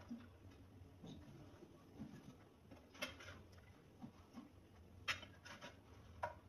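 Metal ladle faintly scraping and clinking against a ceramic serving dish while scooping stewed meat and vegetables, with a few light clicks, the sharpest about three and five seconds in.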